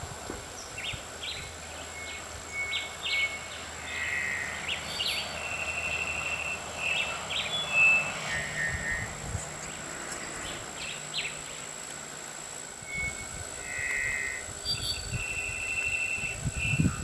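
Wild birds calling: short high whistled notes and brief trills, with a similar phrase of notes repeated later on.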